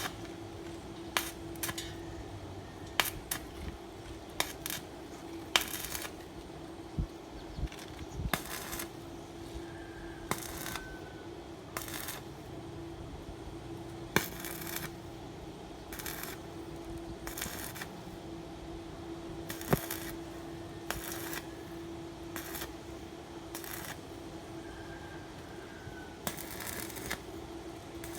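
Welding job: sharp metallic clinks and short hissing bursts about half a second long every second or two, over a steady electrical hum.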